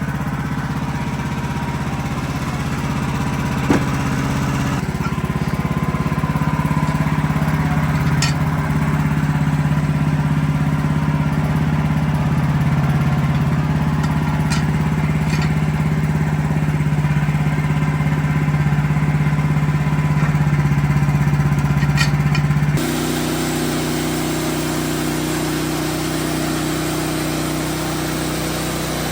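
Wood-Mizer LX55 portable sawmill's engine running steadily, with a few faint clicks; the tone changes abruptly about three-quarters of the way through.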